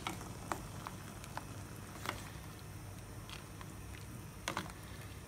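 A pot of fish soup heating on the stove: faint, irregular small clicks and pops over a low steady hum, the water not yet back at the boil after the carrot and onion went in.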